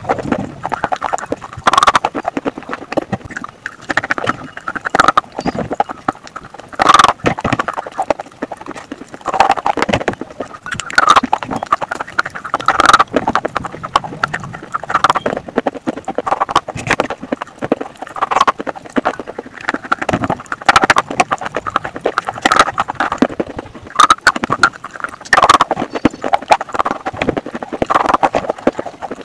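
Slate pencils being bitten and chewed: a run of sharp crunches and snaps at an irregular pace, with louder bites every second or two.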